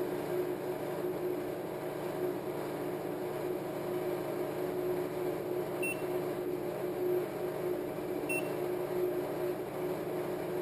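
Steady electrical hum with a constant tone from the amplifier test rig, an Audiopipe APSM2000 mini amplifier driving a 40 Hz test tone into a 0.2-ohm dummy load. Two faint short beeps come a little past halfway, about two seconds apart.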